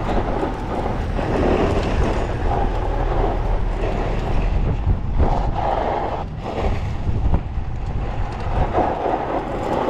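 GOTRAX GX3 electric scooter riding over a dirt and gravel path: a steady rumble of tyres on loose ground with a few brief knocks, and wind buffeting the microphone.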